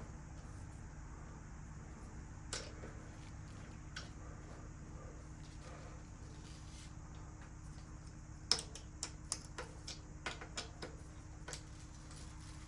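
Sharp metallic clicks and clinks of hand tools being handled, a couple at first and then a quick run of about ten, over a faint steady hum.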